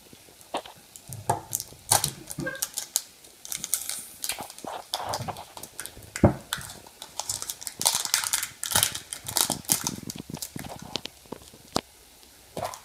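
A small plastic surprise egg and its plastic wrapping being worked open by hand: irregular crinkling, rustling and sharp clicks of plastic, with a few louder snaps along the way.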